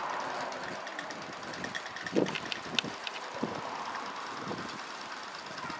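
Mercer type 2 model steam traction engine with a gas burner, running as it drives over paving stones: a steady hiss with fast, fine ticking beats. A few louder clicks and knocks come about two to three seconds in.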